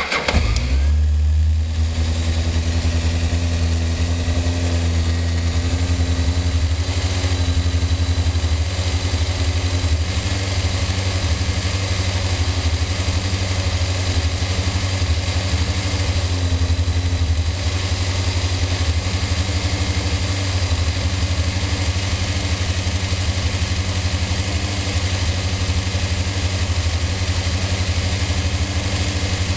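Honda motorcycle engine started from a supercapacitor bank in place of a battery, catching within about a second and then idling steadily.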